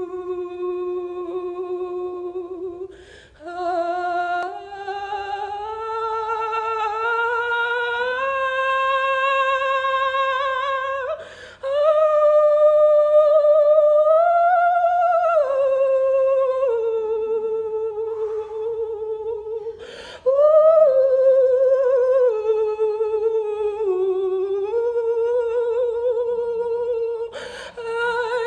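A woman's voice singing wordless, humming-like long held notes with vibrato, the pitch slowly rising and falling from phrase to phrase. Short breaks with a quick breath come about every eight seconds.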